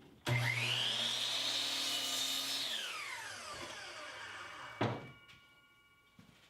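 Electric power saw cutting wood: it starts with a whine that rises as the blade spins up, runs steadily for about two seconds, then winds down with a falling whine. A sharp knock follows about five seconds in.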